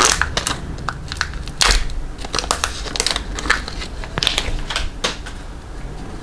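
Hockey card pack wrapper being torn open and handled by hand, a string of irregular rustles and crackles.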